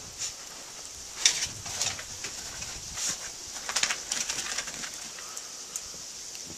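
Short, irregular crunches of paws and footsteps in fresh snow on a wooden deck, loudest about a second in and again around the middle.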